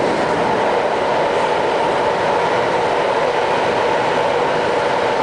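SBS Transit C751A (Alstom Metropolis) metro train running through a tunnel, heard from inside the passenger car: a steady, loud rumble of wheels on rail and tunnel noise.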